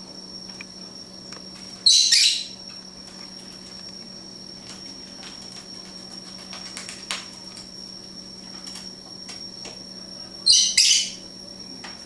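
Pet lovebird giving two loud, shrill calls of about half a second each, one about two seconds in and one near the end. In between come faint scattered ticks and rustles of beaks tearing at magazine paper.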